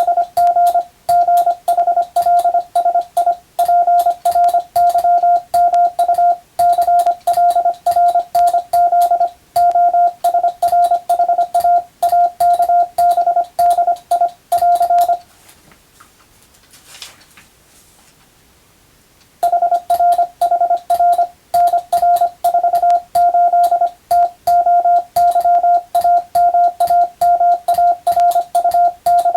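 Morse code practice: a single steady tone is keyed on and off in rapid dots and dashes, spelling out English-text telegram practice. It breaks off for about four seconds halfway through, then carries on.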